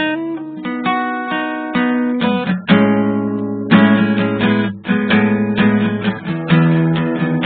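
Background music played on strummed acoustic guitar, a string of plucked chords.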